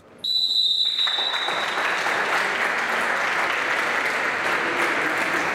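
Spectators applauding steadily in a sports hall. It opens with a single high, steady whistle-like tone that lasts about a second.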